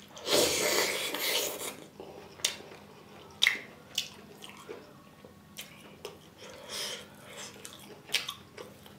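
Close-miked wet eating sounds: a handful of rice and curry taken into the mouth and chewed, with a loud wet stretch in the first second or so, then a few sharp mouth smacks.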